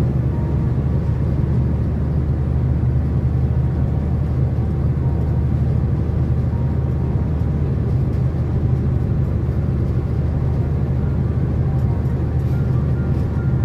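Steady engine drone and road noise inside a truck cab while cruising on a highway, with a low, unchanging hum.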